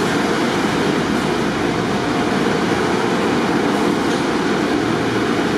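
Steady, loud rushing noise of car wash machinery, with a low rumble under it.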